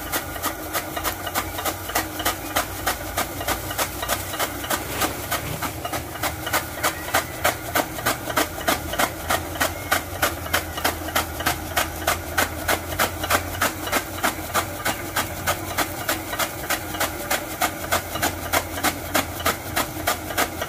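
Chaff-cutting machine chopping straw: its flywheel-mounted blades strike the fed straw in sharp, regular chops about three a second, over the steady low hum of the engine driving it.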